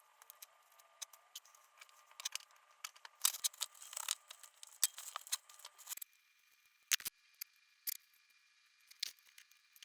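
Kitchen food-preparation handling noises: scattered sharp clicks and crinkly rustles, thickest between about three and six seconds in, with a few lone clicks later.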